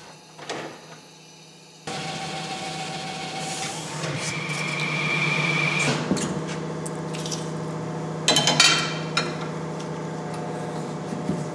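Tyre changing machine running: its turntable motor starts about two seconds in and hums steadily while the wheel turns against the mount/demount head. A brief loud scraping flurry comes about eight seconds in as the tyre is worked off the rim.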